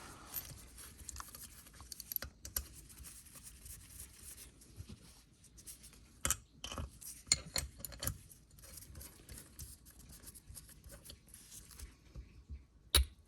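Scattered light clicks, taps and rustling as small metal engine parts and hand tools are handled on a workbench, with a sharper click now and then.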